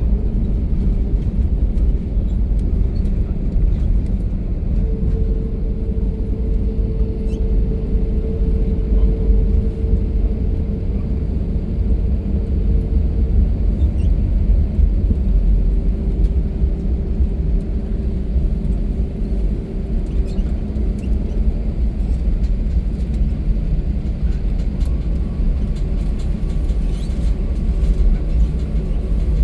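Steady low rumble inside an airliner cabin during landing, with a faint, steady whine held above the rumble.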